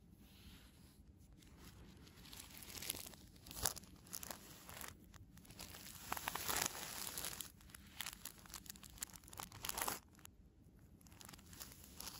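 Clear plastic film wrap on a boxed Apple Watch crinkling and tearing, played backwards. The rustling and ripping comes in uneven bursts, with one sharp snap about three and a half seconds in and the loudest stretch around six to seven seconds, then cuts off abruptly about two seconds before the end.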